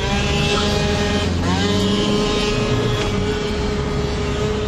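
Moped engine held at high revs while the rider wheelies, heard from inside the following car together with that car's engine and road noise. It runs as one steady high note, dips briefly about a second and a half in, then climbs straight back.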